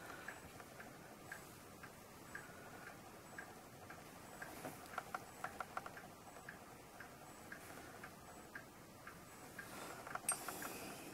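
A clock ticking faintly about once a second. Light clicks of metal tweezers and a toothpick dabbing glue onto a small plastic numeral come thick around the middle, and there is a sharper click near the end.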